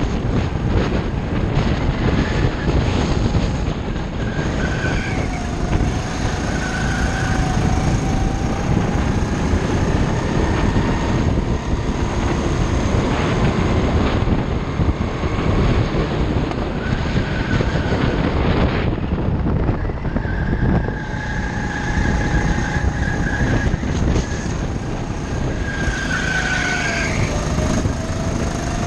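Go-kart engine running at speed, its pitch rising and falling with the throttle, under a heavy rumble of wind on the kart-mounted microphone.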